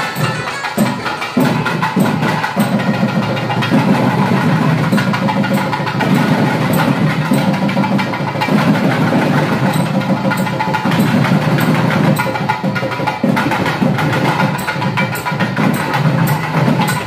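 Traditional Indian music with fast drum strokes over a steady, reedy wind-instrument sound.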